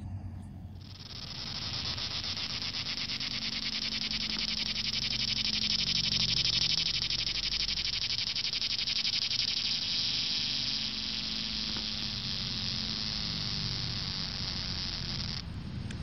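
Male cicadas singing: a steady, high-pitched buzz with a fast pulsing texture. It swells in within the first second and cuts off abruptly near the end.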